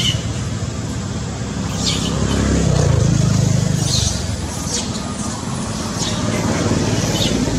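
Baby long-tailed macaque giving short high-pitched squeals, about six spread through, over a steady low rumble that swells about halfway in.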